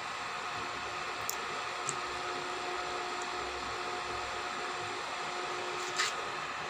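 Stranger PBT 1000-watt power amplifier switched on, giving a steady hiss with a faint hum. A few light clicks come through, the sharpest about six seconds in.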